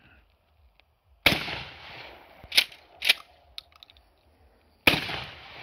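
Two slug shots from a Mossberg Maverick 88 pump-action shotgun, about three and a half seconds apart, each trailing off over nearly a second. Between the shots the pump is worked back and forward, making two sharp clacks.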